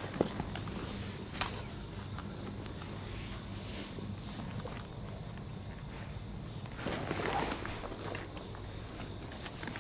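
Steady high drone of insects, with footsteps on gravel and leaf litter and a burst of louder rustling about seven seconds in.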